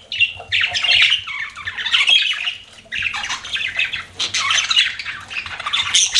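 Budgerigars chattering: a dense run of rapid chirps and squawks, with a brief lull about three seconds in.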